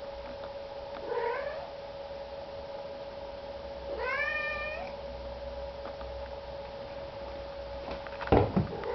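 A domestic cat meowing twice, about a second in and again about four seconds in, over a steady hum. Near the end come a couple of loud knocks.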